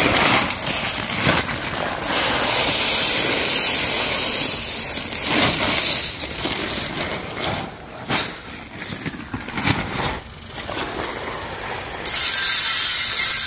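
Shelled corn pouring from a sack into a feed trough: a steady hissing rush of kernels, in two long pours with a couple of knocks between them.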